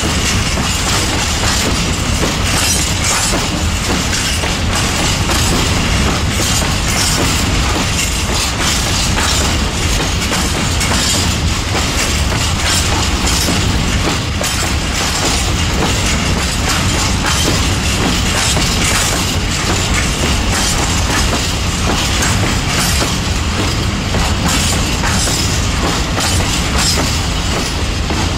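Empty open freight wagons rolling slowly through a station, their wheels clattering and knocking continuously over the joints and turnouts, with a faint high squeal. The loud clatter comes from the train being taken through the station on a side track in poor condition.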